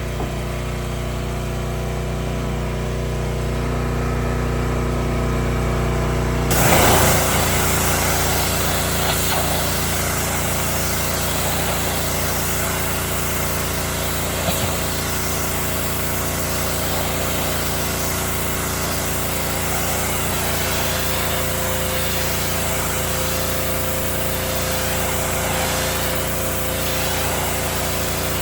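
Gasoline pressure washer engine running steadily. About six and a half seconds in, the spray gun is triggered and the high-pressure water jet hisses on, carrying on over the engine.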